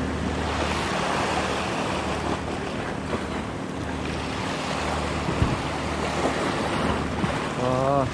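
Surf washing over a rocky shoreline in an even, continuous rush, with wind on the microphone. A brief voice comes in near the end.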